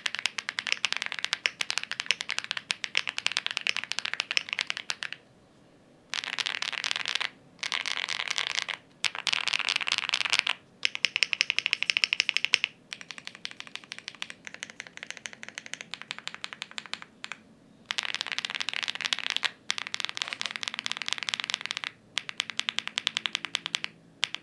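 Mechanical keyboard with AKKO Cilantro switches being typed on: fast runs of keystrokes, each run lasting one to a few seconds, broken by short pauses.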